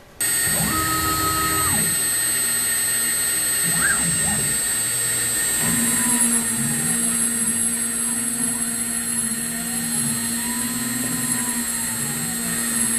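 CNC router milling an aluminum plate with an end mill: the spindle runs with a steady high whine while the cutter works the metal, and other whines rise and fall in pitch in repeated arcs as the cutter follows its path. The sound starts abruptly and stays steady and loud.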